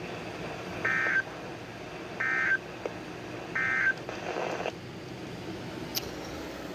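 Three short bursts of Emergency Alert System SAME digital data tones, about a second apart. This is the end-of-message code that closes the broadcast severe thunderstorm warning.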